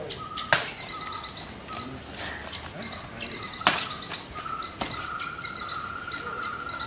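A bird calling over and over on one high note, then holding it for a couple of seconds. Three sharp knocks come about half a second, three and a half and nearly five seconds in.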